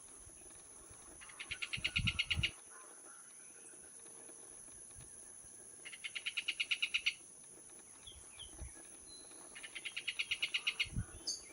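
A songbird singing three times, each song a quick series of about a dozen evenly repeated notes that grows louder. Under it runs a steady high insect trilling, like crickets.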